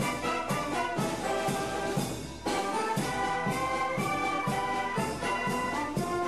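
Brass band music with a steady drum beat of about two beats a second. The music dips briefly about two and a half seconds in.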